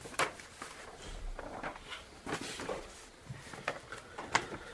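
Faint, scattered clicks and light rustling, four or so sharp ticks spread over a few seconds, with no speech.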